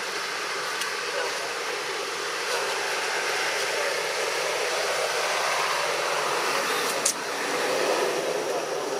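Steady rushing background noise with no clear pitch, and a single sharp click about seven seconds in.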